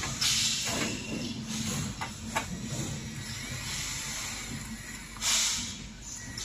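Cordless drill boring through a thin sheet-metal panel: the motor runs and the bit grinds in rough hissing bursts, the loudest about five seconds in. There are a couple of sharp clicks around two seconds in.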